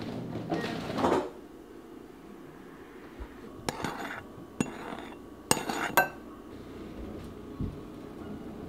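Metal kitchenware clinking: a metal spoon knocking against a stainless measuring cup of flour, four sharp ringing clinks in the middle, after a short scraping rustle at the start. A low steady hum runs underneath.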